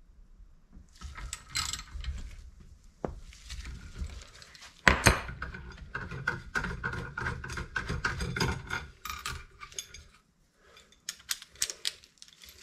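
Socket ratchet clicking and steel tools clinking as the nut is backed off a threaded-bar bearing press, with the needle roller bearings now drawn fully home in the suspension arm. A single sharp metallic knock about five seconds in, and a quick run of clicks near the end as the nut and socket come off.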